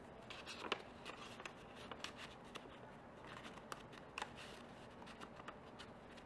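Faint rustling and light ticks of paper cardstock being handled, a small handmade card being moved and turned in the hands.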